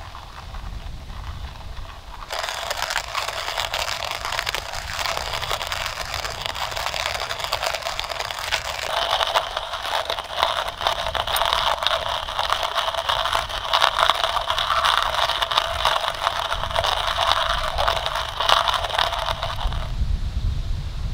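Stainless steel hand-crank coffee grinder crushing coffee beans: a continuous gritty crunching that starts about two seconds in and stops near the end.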